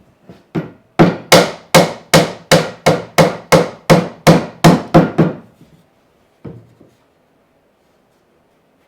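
A hammer striking wood in a quick, steady run of about a dozen hard blows, roughly two and a half a second. A few light taps come before the run and one more follows it.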